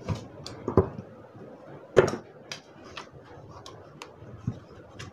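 Scattered clicks and knocks of a Viaris blender's plastic base being worked loose and pulled off its metal motor housing by hand. The loudest knock comes about two seconds in.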